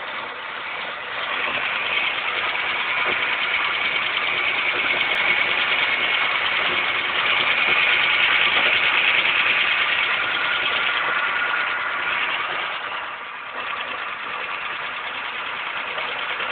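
Car engine running with a knock from under the valve cover, the top-end noise the owner is trying to show.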